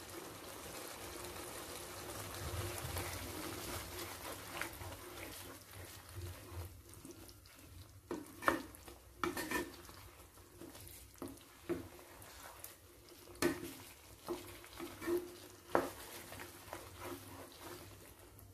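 Chicken with tomatoes and ginger-garlic paste sizzling gently in a non-stick kadai. From about six seconds in, a wooden spatula stirs and scrapes the mix, knocking against the pan in scattered sharp taps.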